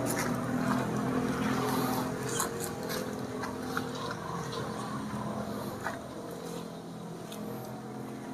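A passing motor vehicle's engine running and fading as it moves away, with a few faint clicks.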